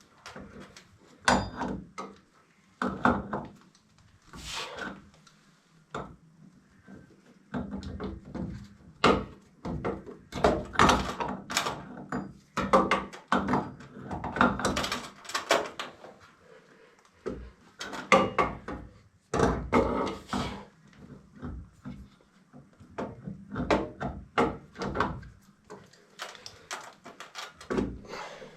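Irregular knocks, clunks and clatter from hands working on plumbing, coming in uneven clusters with short pauses between them.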